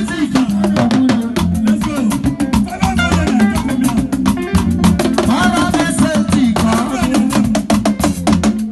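Upbeat salsa-style Latin music with fast, steady percussion, guitar and some singing.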